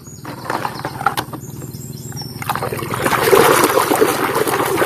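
Light clicks and knocks of a plastic toy being handled, then water splashing over it as it is rinsed, starting about halfway through and growing louder.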